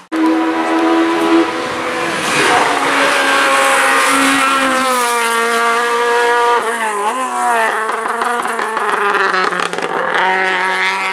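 Race car engine running hard as the car climbs a hill-climb course, its pitch breaking at several gear changes and dipping and wavering about two-thirds through before rising again.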